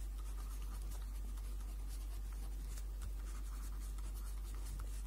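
Pen writing on a sheet of paper: a run of faint, short scratching strokes over a steady low hum.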